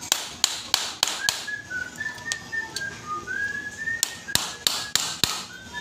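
Sharp metal taps, one small burst near the start and another about four seconds in, as hand tools knock against a forklift starter motor's housing. Between the bursts a person whistles a short tune.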